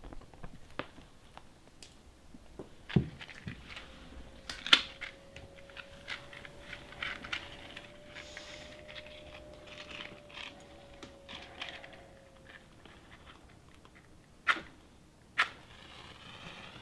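Matches being struck and handled to light candles: small scratches and clicks throughout, with two sharp clicks about a second apart near the end. A faint steady tone hums through the middle.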